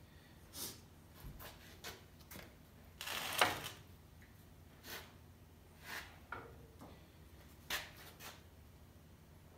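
Scattered knocks, clinks and scrapes as a metal gear housing and a small steel bowl are handled on a workbench, with one louder scraping clatter about three and a half seconds in. The housing is being tipped to drain the diesel flushed through it.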